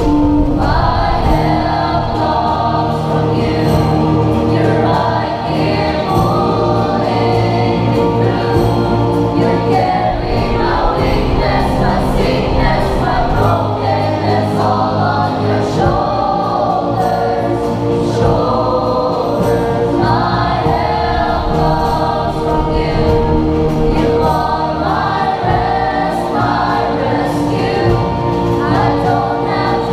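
A choir singing, accompanied by a live band of drums and cymbals, electric and acoustic guitars, bass guitar and piano.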